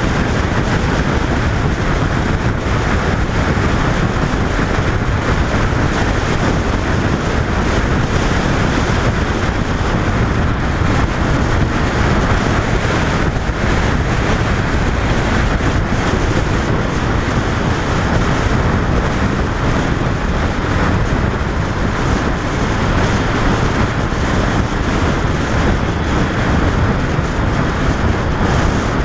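Steady wind rush buffeting the microphone of a camera mounted on a 2005 Honda VFR 800 motorcycle cruising at road speed, with the bike's running noise blended beneath it.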